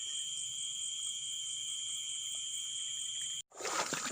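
Night insect chorus, crickets trilling steadily at two high pitches, one of them pulsing. It cuts off abruptly about three and a half seconds in, and scattered clicks and handling noises follow.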